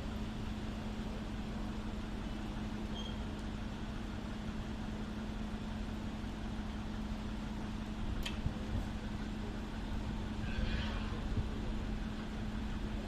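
Steady background rumble of vehicle traffic with a constant low hum. A single sharp click comes about eight seconds in, and faint voices are heard near the end.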